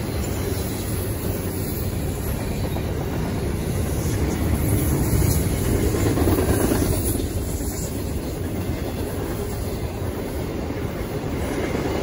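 Double-stack intermodal freight train rolling past, its loaded container well cars giving a steady rumble and rattle of steel wheels on the rails, a little louder about five to seven seconds in.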